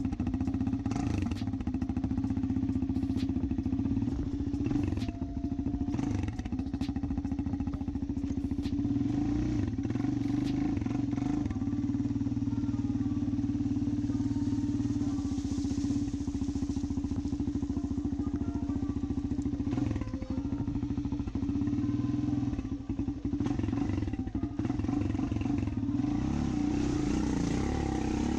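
Four-wheeler (ATV) engine running at fairly steady, moderate revs as it is ridden through a muddy creek crossing. Scattered sharp knocks come through in the first half.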